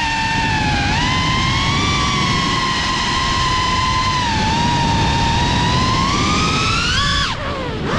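GEPRC Cinelog35 FPV cinewhoop's motors and ducted propellers whining in flight, a steady high pitch that wavers up and down with the throttle. Just after seven seconds the whine climbs briefly, then drops sharply and quieter as the throttle is chopped, and rises again near the end.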